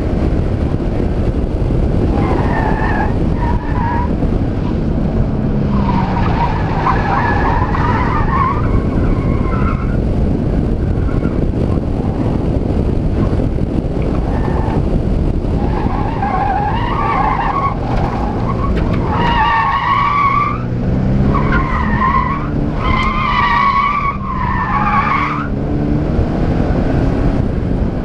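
Scion FR-S's flat-four engine revving up and falling back as the car is driven hard through an autocross course, with the tires squealing in several bursts through the corners. Heavy wind and road rumble come through the camera mounted on the car's side.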